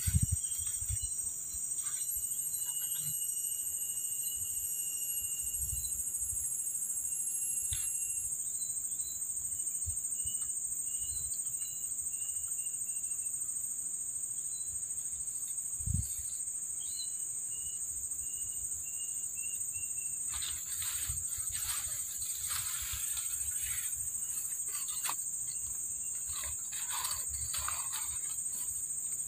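Steady high-pitched drone of insects, with short chirps now and then. In the second half, rustling in the grass.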